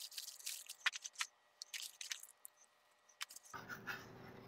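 Faint, scattered crackling and rustling of plastic packaging bags as they are handled.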